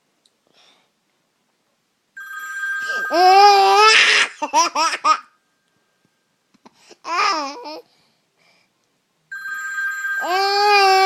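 A phone ringtone starts twice, about 2 s in and again near the end. Each time a young child's high-pitched voice joins in with long squeals and laughter, and there is another short vocal burst in between.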